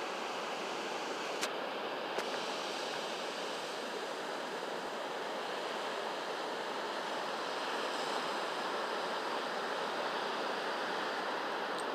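Ocean surf: waves breaking and washing into white foam, a steady rushing noise, with two brief faint clicks about one and a half and two seconds in.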